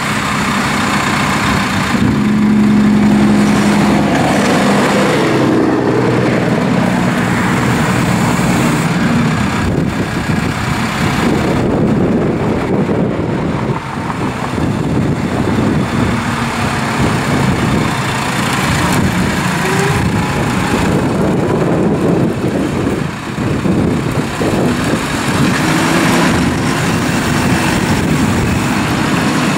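A Case IH Farmall 100C tractor's four-cylinder diesel engine running as the tractor drives and raises its front loader. The engine speed rises and falls at times.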